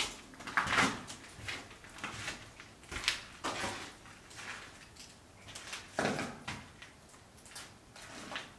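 Footsteps crunching and scraping over fallen plaster and brick rubble on a corridor floor, an uneven step every half second to a second.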